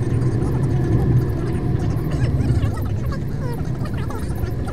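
A car driving at low speed, its engine and tyres making a steady low rumble heard from inside the cabin.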